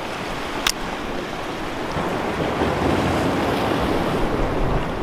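Ocean surf washing against a rocky shore, a steady rush that grows a little louder about two seconds in, with one short click under a second in.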